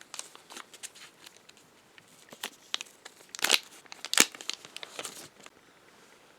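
Irregular plastic clicks, scrapes and crinkles from the battery and back of a Nokia 2660 Flip phone being handled, with two louder clicks about three and a half and four seconds in; the handling stops about five and a half seconds in.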